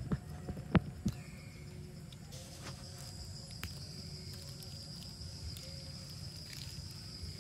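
Outdoor ambience with a steady, high-pitched insect drone that starts about two and a half seconds in. A few sharp knocks come in the first second.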